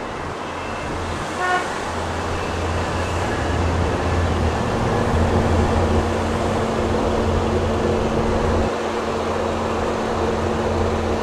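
Steady road and engine noise of a moving car heard from inside the cabin, with a short high-pitched tone about a second and a half in.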